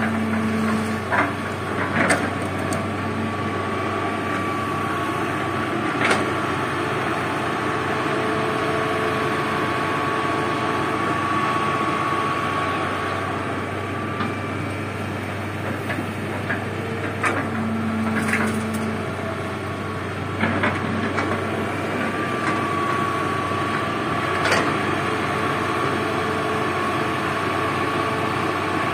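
Hydraulic excavator's diesel engine running steadily under load, with a thin high whine that swells and fades as it works. Several sharp knocks and clunks come as the bucket swings and loads red soil into a dump truck's steel bed.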